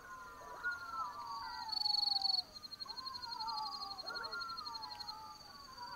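Black-backed jackals howling in chorus: several overlapping wailing calls, each rising briefly and then sliding down in pitch. Behind them runs a steady high pulsing trill, which is briefly louder about two seconds in.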